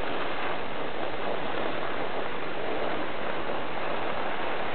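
Steady wind noise on the microphone, an even rushing hiss with no change in level.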